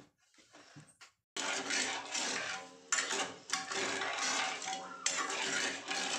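A metal ladle stirring sugar and water in an aluminium kadai, scraping and clinking against the pan as it breaks up sugar that has hardened in the hot pan for syrup. It starts suddenly about a second and a half in, after a few faint spoon clicks.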